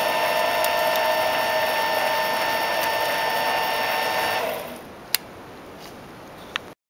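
Micro lathe running with a steady whine, then switched off about four and a half seconds in and quickly spinning down. Two sharp clicks follow.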